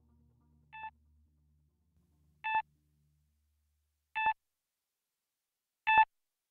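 Four short electronic beeps at the same pitch, evenly spaced about a second and three quarters apart, each louder than the last, as faint background music dies away at the start.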